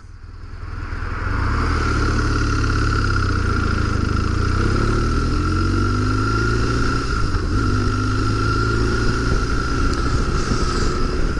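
BMW R1200GS boxer-twin engine pulling the motorcycle up to speed, with wind rush on the rider's microphone. The sound builds over the first second or so, then holds steady, the engine note rising a couple of times as it accelerates.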